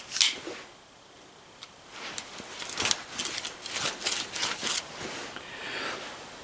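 A hand tool scraping on a small metal part in a quick run of short, irregular strokes, starting about two seconds in, as the part is trimmed to fit.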